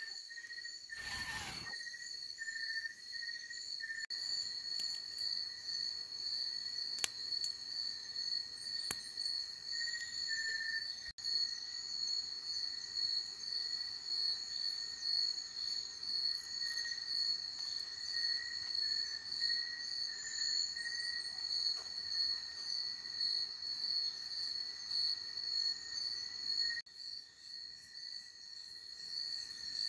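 Night chorus of crickets and other insects: steady, high-pitched trilling that keeps on without a break, with a few faint clicks over it and a slightly quieter stretch near the end.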